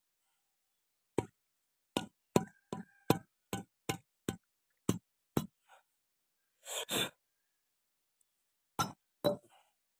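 About ten sharp knocks at two or three a second, from handling and tapping a tractor's hydraulic steering cylinder as it is reassembled. A short scrape follows about seven seconds in, then two more knocks near the end.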